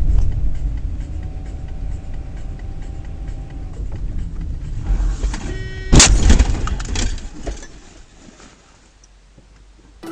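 Dashcam car's steady road rumble, then a brief high tone and a sudden loud bang about six seconds in, followed by a few smaller knocks: a car collision.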